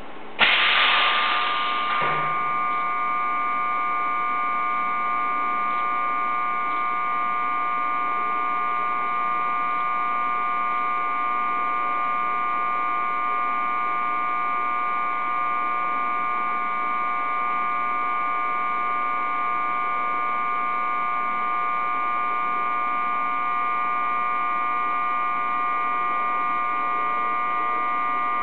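A sudden rush of noise about half a second in, settling after about two seconds into a steady hum of several held tones.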